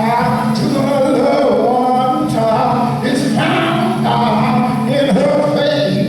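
Singing voices in a worship song, long held notes that glide between pitches.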